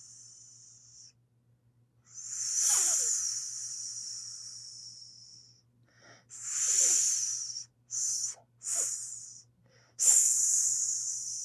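Snake hissing in a series of forceful hisses, each starting sharply and trailing off: a long one about two seconds in, a shorter one past six seconds, two quick short ones around eight seconds, and another long one near the end. A faint steady low hum runs underneath.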